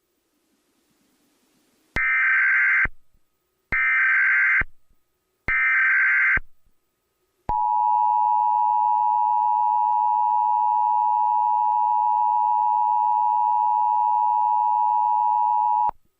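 Emergency Alert System tones: three short bursts of SAME header data, about a second each with short gaps between them, then the steady two-tone EAS attention signal (853 and 960 Hz). The attention signal holds for about eight seconds and cuts off abruptly.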